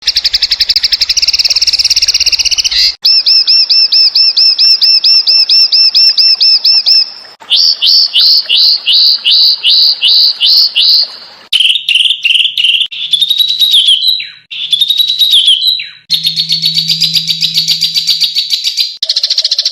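A spliced series of loud, clear songbird calls used as training song for cage birds. It runs from a fast trill to a run of rapid repeated chirps, then slower slurred notes, then varied whistles and another trill, each part cutting to the next abruptly.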